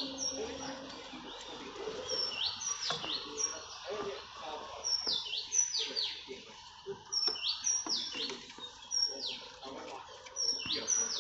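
A bird chirping repeatedly in short, high, steeply falling notes, grouped in clusters every second or two. A few light knocks from hands handling the thermostat housing and hose sound beneath it.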